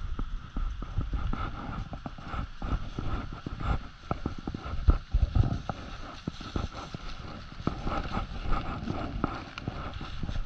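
Footsteps crunching and rustling through deep dry fallen leaves at a brisk walk, a dense run of irregular crackles and dull thumps.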